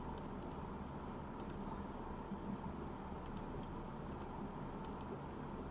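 Sparse clicking at a computer, a handful of short sharp clicks, mostly in quick pairs, spaced a second or so apart, over a faint steady room hum.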